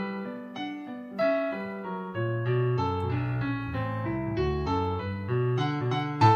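Background music: the instrumental intro of a pop song, a piano-like keyboard playing a melody over bass chords in a steady rhythm.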